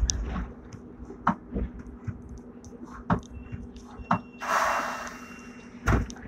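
Cabin sounds of Hong Kong's fifth-generation tram No. 120: a steady low hum with scattered clicks and knocks, a burst of hiss lasting over a second about two thirds of the way in, and a sharp knock near the end.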